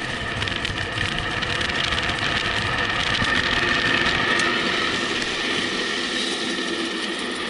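Wind rushing over the handlebar-mounted camera and tyres rolling on asphalt as a bike descends a paved mountain road at speed, with a steady high whine running through it.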